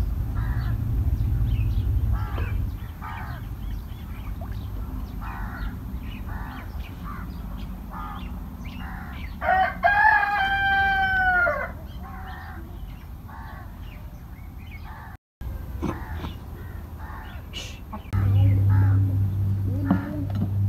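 A rooster crows once, about ten seconds in: a call of about two seconds that holds steady and then falls away at the end. Short calls repeat throughout, with a low rumble at the start and again near the end.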